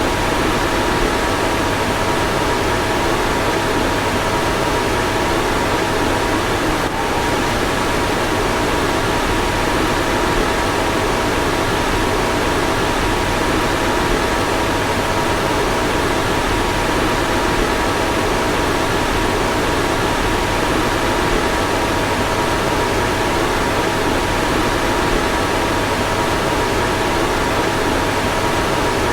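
Car fan running steadily: an even rushing hiss with two faint steady whine tones over a low hum. There is a brief faint tick about seven seconds in.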